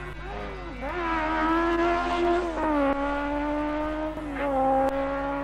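Racing sidecar motorcycle engine revving hard at speed. The pitch falls about two and a half seconds in and climbs again near the end.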